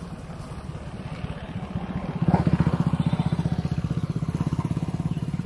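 A small engine running with a rapid, even putter, growing louder about two seconds in.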